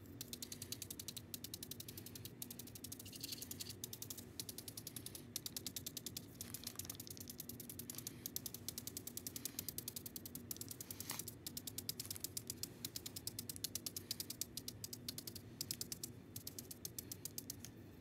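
A texture tool dabbed repeatedly onto paint-covered paper, making a fast, even run of taps, about five or six a second.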